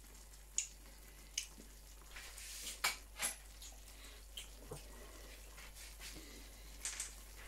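Butter-based buffalo sauce bubbling in a small saucepan, a faint crackle with a few sharp pops scattered through it.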